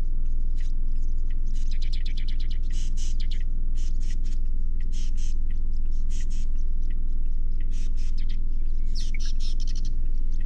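Birds chirping in many short, high calls, with a few quick trills, over a steady low rumble.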